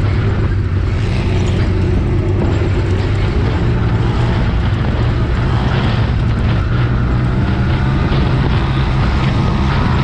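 Off-road vehicle driving on a sand track, its engine running steadily at cruising speed, with tyre and wind noise.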